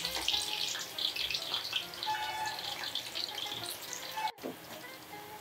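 Raw banana slices deep-frying in hot oil in an iron kadai: a dense, crackling sizzle of bubbling oil, still early in the frying while moisture boils out of the slices. About four seconds in it cuts off abruptly, leaving quieter background music.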